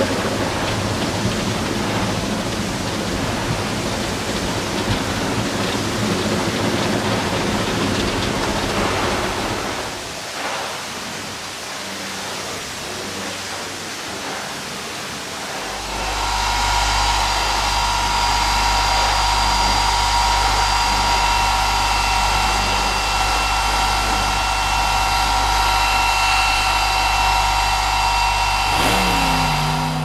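Cartoon car-wash sound effects: a rough rushing hiss of scrubbing brushes and water, then, from about halfway through, a louder steady machine hum with water spraying. A short falling tone comes just before the end.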